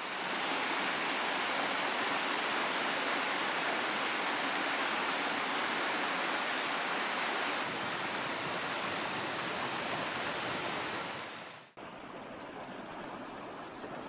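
Rocky mountain stream rushing over boulders: a steady, full hiss of flowing water. About twelve seconds in it cuts abruptly to a quieter, duller flow.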